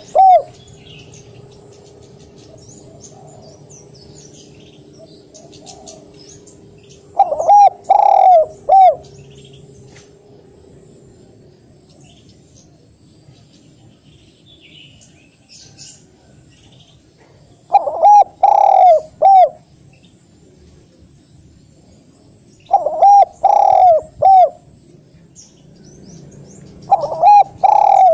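Spotted dove cooing close up: four phrases of three or four low, hooting coo notes each, several seconds apart, the first about seven seconds in and the last running to the end.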